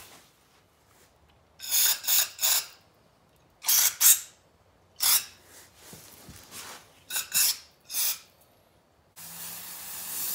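Aerosol cleaner spraying through a thin straw nozzle into a crankshaft's journal oil holes in about nine short hissing blasts, flushing out debris and metal bits. Near the end it switches to one long, continuous spray over the crank.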